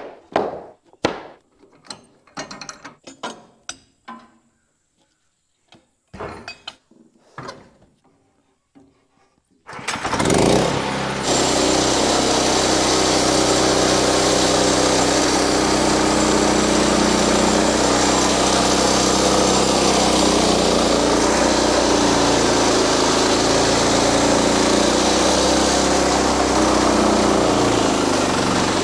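Lumber boards handled and dropped in a run of sharp wooden clacks and knocks, then the Wood-Mizer LX50 portable sawmill's engine starts abruptly about ten seconds in and runs steadily.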